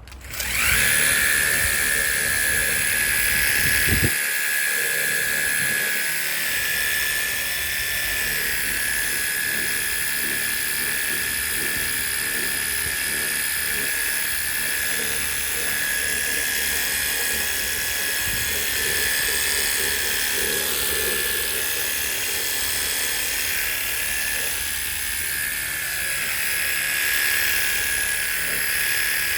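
Battery-powered portable jet wash running: its pump motor spins up at the start, then holds a steady whine over the hiss of the water spray.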